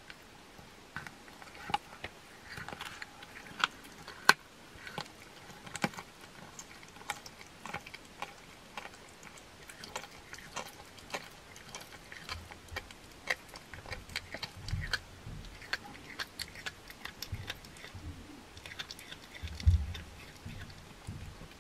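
Domestic cat eating raw meat from a plastic bowl: wet chewing and licking with irregular sharp clicks of teeth on the food, and a few low bumps in the second half, the strongest near the end.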